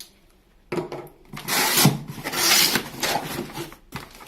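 Cardboard packaging being handled as the box is opened and its contents are taken out: a run of rubbing and scraping strokes that starts under a second in and dies away near the end.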